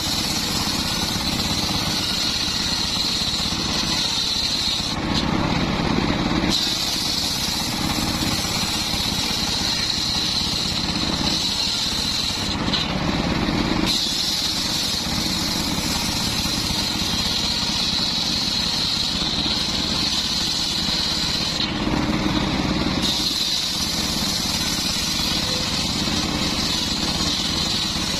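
Homemade table-mounted circular saw ripping a mahogany slab: a loud, steady high whine of the blade cutting the wood. The sound changes briefly three times, about five, twelve and twenty-two seconds in, when the high whine drops away and a lower run takes over.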